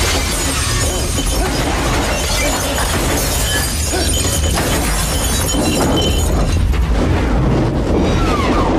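Film sound effects of gunfire hitting rows of liquor bottles behind a bar: a dense crash of shattering, bursting glass that does not let up.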